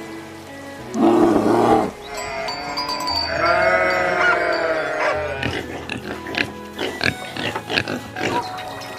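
Farm animal calls over background music: a short call about a second in, a long drawn-out pitched call in the middle, then a run of short, rapid calls.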